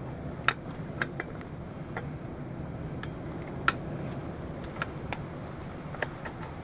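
Irregular sharp clicks and clinks of metal tools and parts being handled while refitting a motorcycle's rear wheel and brake caliper, the two loudest about half a second in and just past halfway.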